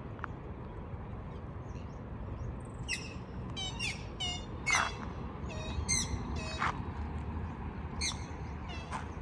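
Birds squawking: a quick run of short, harsh calls starting about three seconds in, then a couple more near the end, over a steady low outdoor rumble.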